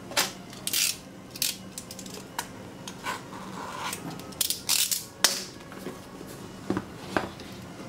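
Cardboard Samsung Galaxy S5 retail box being handled and turned over by hand: an irregular run of sharp taps, knocks and short scrapes as the box and its lid bump and slide against each other and the table.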